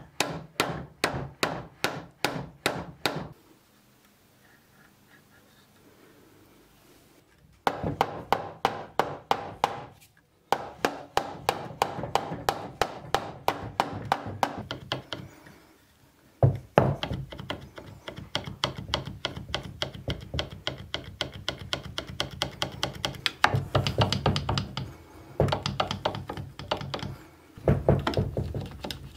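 Mallet with a black rubber head tapping the wooden body of a large antique hand plane: quick, regular knocks, several a second. The knocks come in long runs, with a pause of a few seconds shortly after the start and a brief break about halfway through.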